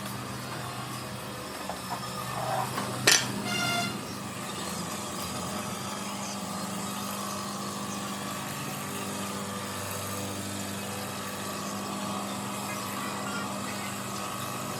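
A steady mechanical hum. About three seconds in there is a sharp click and a short ringing tone of under a second.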